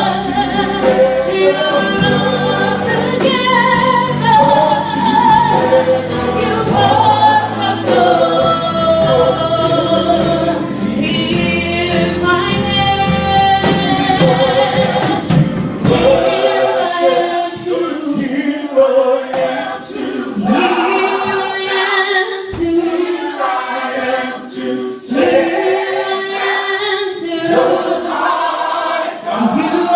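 Choir singing with a low accompaniment underneath. About halfway through, the accompaniment drops out and the voices carry on unaccompanied.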